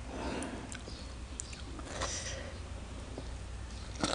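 Quiet handling of food: fingers picking through a plate of shredded green mango salad and lettuce, making faint clicks and soft rustles, with a brief hiss about two seconds in.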